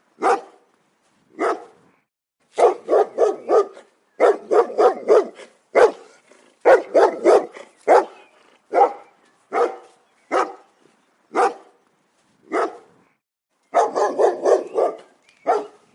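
Large dog barking loudly: quick runs of four to six barks alternate with single barks spaced about a second apart.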